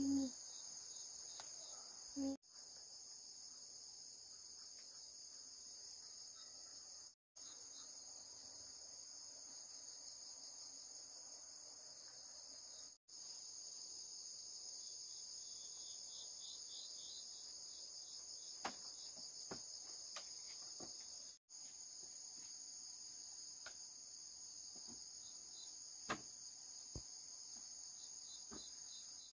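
A steady, high-pitched insect chorus trilling without a break, cutting out abruptly to silence four times. A few faint light clicks and knocks come through in the second half.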